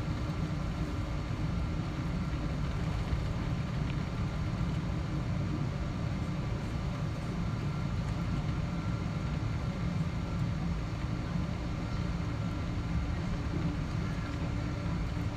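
Cabin noise inside a Boeing 777-200ER taxiing with its engines at low thrust: a steady low rumble with a few faint, steady whining tones above it.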